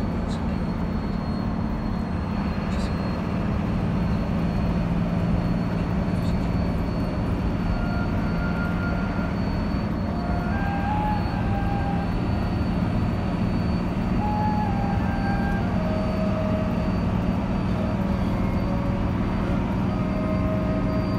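Intercity bus engine and road noise heard from inside the driver's cab while cruising on a highway: a steady low drone with a thin high whine above it.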